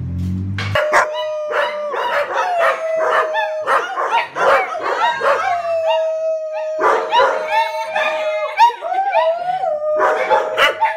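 A dog howling: a long held note through the middle, with yips and short barks between howls. A low rumble cuts off under a second in.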